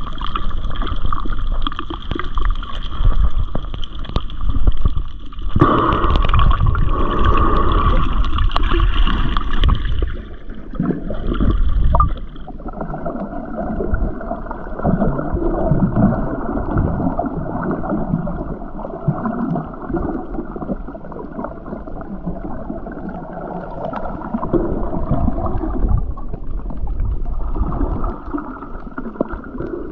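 Water gurgling and sloshing around a snorkeler's GoPro at and under the surface, continuous. About twelve seconds in the sound turns duller and more muffled, as heard underwater.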